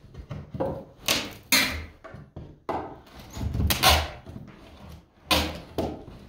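Plywood roof sheathing being worked loose from the wooden rafters with a hand tool overhead: an irregular series of wooden knocks and creaks, the loudest a little after one second, near four seconds and past five seconds.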